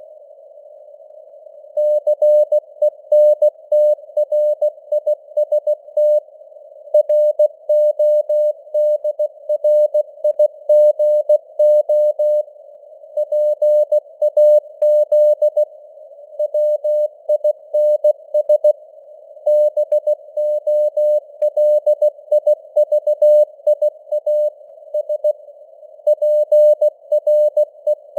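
Morse code (CW) sent at 16 words per minute: a single mid-pitched tone keyed on and off in dots and dashes, with short pauses between words, over a faint band of simulated radio noise. The keying starts after a pause of under two seconds, spelling out news headlines.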